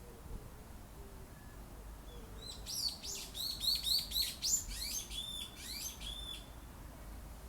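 A songbird sings one fast phrase of high chirping notes, many of them sliding downward, for about four seconds, starting a couple of seconds in. A steady low wind rumble runs underneath.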